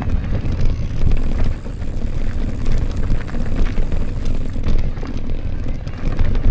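Wind rushing over the microphone of a moving mountain bike, with tyre and trail noise and scattered clicks and rattles.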